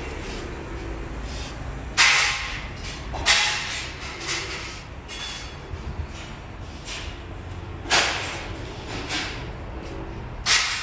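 A handful of sharp bangs at uneven intervals, each trailing off within about half a second, over a steady low rumble.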